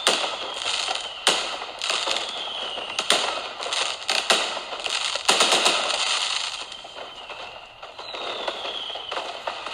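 Fireworks sound effect: a series of sharp bangs, each followed by crackling fizz, with faint falling whistles of rockets in between. The bangs come every second or so through the first half, then the crackle thins out before more bangs near the end.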